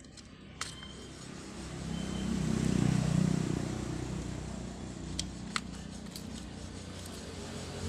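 A passing motor vehicle: a low engine rumble and road hiss swell to a peak a few seconds in and then ease off. A few sharp small clicks are heard, once near the start and twice later on, as the angle grinder's switch is handled and fitted back into the housing.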